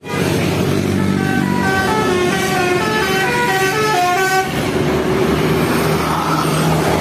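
Multi-tone telolet horn of an odong-odong mini train playing a quick tune of short stepped notes over a steady low vehicle hum; the tune stops about four and a half seconds in, leaving a noisy rush.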